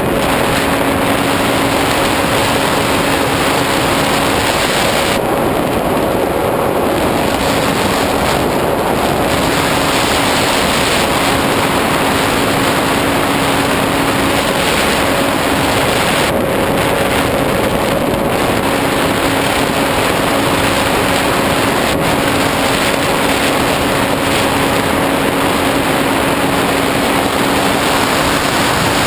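Airflow rushing over the onboard camera of a SkyWalker 1900 FPV plane in flight, with the faint steady hum of its electric motor and propeller underneath. The hum drops out for a few seconds about four seconds in, then returns.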